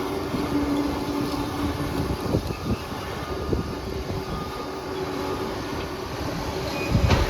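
Bulldozer's diesel engine running steadily under work, with scattered knocks and a heavier thump near the end.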